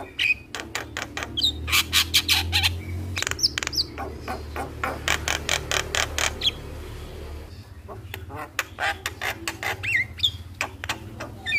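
Javan myna singing: fast runs of harsh clicking chatter mixed with short rising whistles, easing off briefly about seven seconds in before picking up again.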